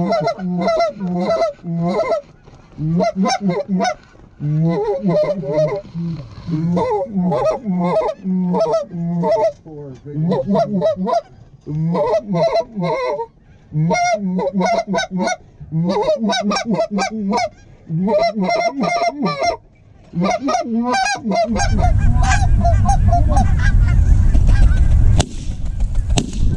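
Geese honking and clucking in quick strings with short breaks between them, from a flock of cackling and lesser Canada geese working decoys, with hunters blowing goose calls back at them. About 21 seconds in the calling gives way to a loud low rushing noise that stops shortly before the end.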